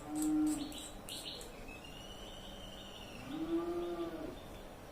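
Cattle lowing: a short call right at the start and a longer one about three seconds in that rises and then falls. Light clicks in the first second and a half, and a faint high whistle between the calls.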